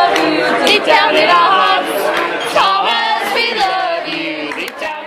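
A group of voices singing together, the sound slowly falling away toward the end.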